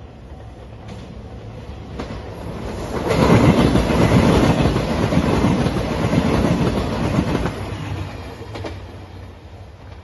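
JR Shikoku 2700 series diesel limited express train passing close by, its wheels clacking over the rail joints. The sound builds for about three seconds, stays loudest for about four, then fades as the train pulls away.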